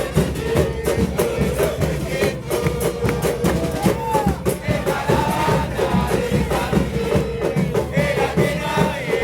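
Football supporters' band in the stands: drums beating fast and continuously under a steady held note, with the crowd singing along.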